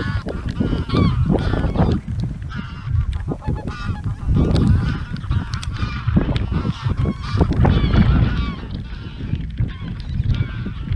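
Flocks of wild geese honking continuously as they fly overhead, many overlapping calls at once, over a steady low rumble.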